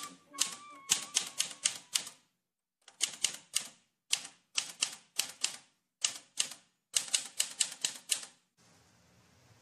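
Manual typewriter typing: quick runs of key strikes in short bursts separated by brief pauses, stopping about a second before the end.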